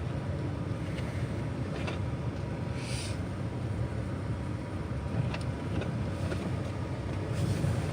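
Steady low hum of a truck's engine running, heard from inside the cab, with a faint tick about three seconds in.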